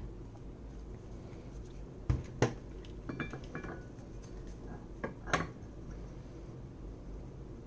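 Light metal clinks and taps as brake caliper parts are handled: two sharp knocks about two seconds in, a brief ringing clink around three seconds, and two more taps a little after five seconds.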